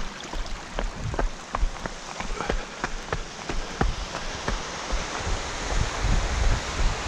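A trail runner's footfalls crunching on a stony gravel path, nearly three strides a second, over a steady rushing hiss.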